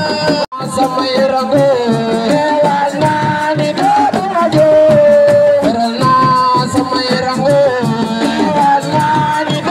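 Senegalese assiko band playing: a lead voice singing over hand drums and shakers in a steady dance rhythm. The sound cuts out for an instant about half a second in.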